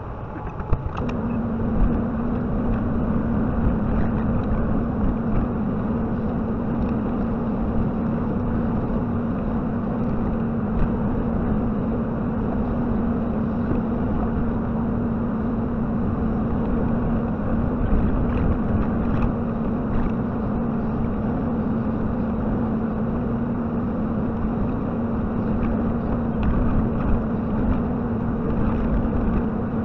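JCB 55Z mini excavator's diesel engine running under work, stepping up to a louder, steady note about a second in and holding it. Occasional short knocks sound over the engine.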